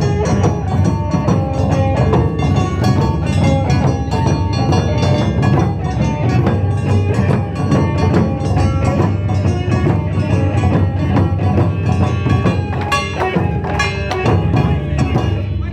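Live Japanese traditional-style band music: taiko drums and clacking percussion keep a steady, dense rhythm under a melody of short pitched notes.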